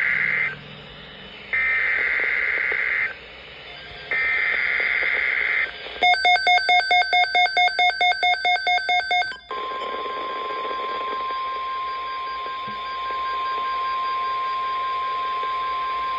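Emergency Alert System SAME header: the end of one buzzy data burst, then two more, each lasting about a second. Next comes about three seconds of rapid beeping, roughly five beeps a second. From about six seconds in comes the steady NOAA Weather Radio 1050 Hz warning alarm tone, which stops shortly before the spoken watch announcement.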